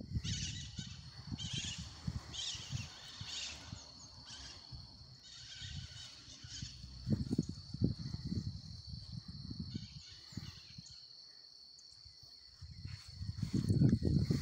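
Insects droning: a steady high-pitched hum with bursts of chirping over it, mostly in the first half. Irregular low rumbling buffets on the microphone come and go and are loudest near the end.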